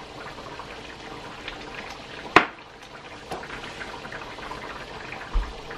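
Chicken simmering in broth in a frying pan, a steady bubbling hiss, with one sharp click about two and a half seconds in and a short low thump near the end.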